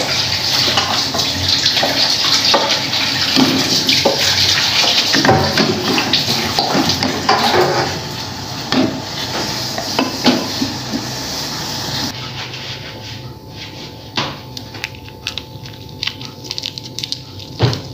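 Water boiling hard in a metal pot of instant noodles, with knocks and scrapes of a plastic slotted spoon against the pot as the noodles are lifted out. About twelve seconds in, the boiling stops abruptly and gives way to quieter clicks and taps of seasoning being worked into the noodles in a bowl.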